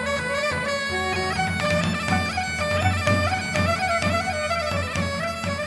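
Instrumental folk music: a piping melody over a steady drone, with a low regular beat.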